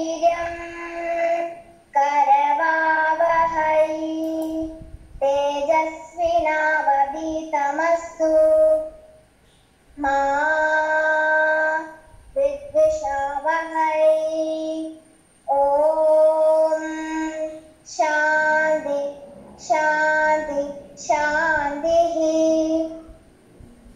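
A young girl singing a devotional song solo, in short phrases with held notes and brief pauses for breath between them.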